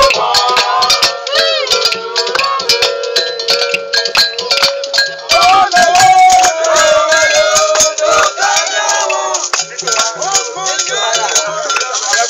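Borborbor music played live: several voices singing over a dense beat of rattles and struck percussion.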